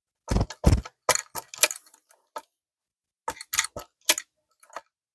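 A run of sharp metallic clicks and knocks in three clusters, the first two knocks the heaviest: a Civil War breech-loading carbine being handled and made ready to fire.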